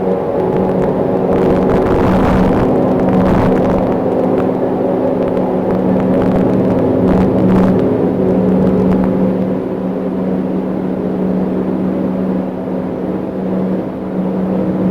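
Steady low drone made of a few held tones, with a couple of brief swells of hiss. The recordist could not place it, likened it to a motor glider or a lawn mower, and suspects high-voltage power lines.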